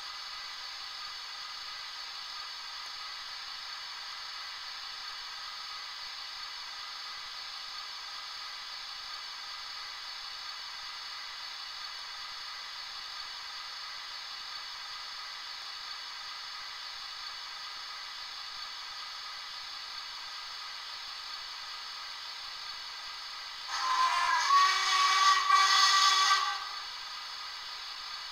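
DCC sound decoder in a model of the LMS Coronation-class steam locomotive City of Sheffield, playing a steady steam hiss while the engine stands. Near the end it sounds a louder whistle lasting about three seconds.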